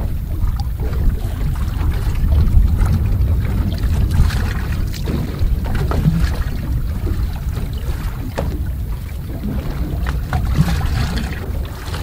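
Steady low wind rumble on the microphone over sea and boat noise, with a few light knocks.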